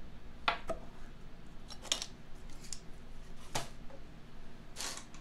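Wrenches and small metal parts clinking and clanking on a workbench as they are handled during disassembly: about five sharp, irregularly spaced metallic clicks, the loudest near the middle and near the end.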